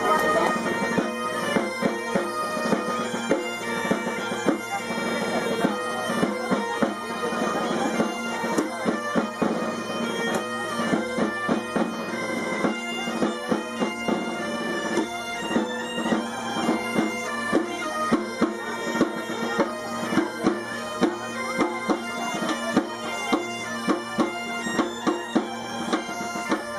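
A band of Asturian gaitas (bagpipes) playing a tune over their steady drones, with a drum striking a regular beat.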